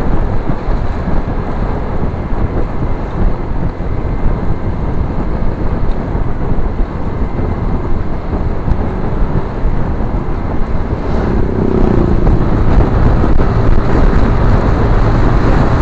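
Motorcycle riding noise: wind rushing over the handlebar-mounted microphone together with engine and tyre noise, a steady loud rumble. It grows a little louder about twelve seconds in, with a brief low tone just before.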